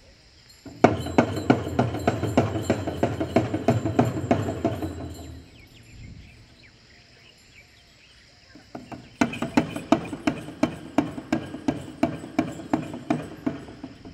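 Jhakri shamans' dhyangro frame drums beaten quickly and evenly, about three to four strokes a second, with jingling bells. They play in two spells: one from about a second in to about five seconds, then another starting about nine seconds in.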